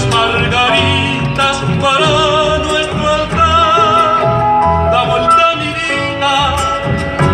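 Latin American folk song: a solo voice singing held notes with strong vibrato over instrumental accompaniment, with a regular low beat.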